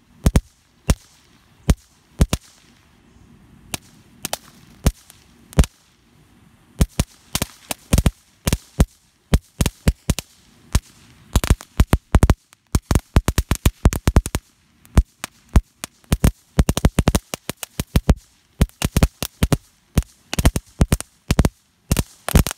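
Red Rhino Junebug ground firework burning and popping off a string of sharp firecracker-like cracks. The cracks are scattered at first, then come quick and irregular from about seven seconds in.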